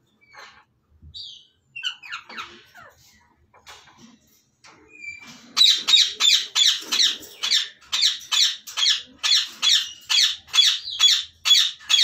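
African grey parrots calling in their nest box. Scattered soft chirps come first; then, about five and a half seconds in, a fast run of loud repeated squawks starts at an even pace of nearly three a second.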